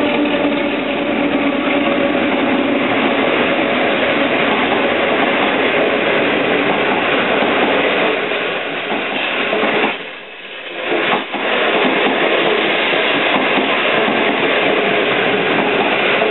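A DF11 diesel-electric locomotive passing at speed, its engine hum fading within the first couple of seconds. A long rake of 25Z passenger coaches follows, rushing past with steady wheel-on-rail noise that turns briefly quieter about ten seconds in.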